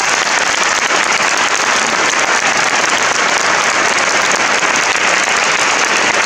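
Audience applauding steadily and densely at the end of a choral piece.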